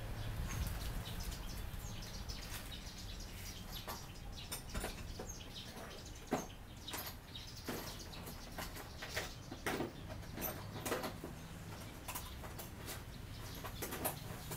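Scattered rustling and short clicks of small parts being handled, over a steady low hum.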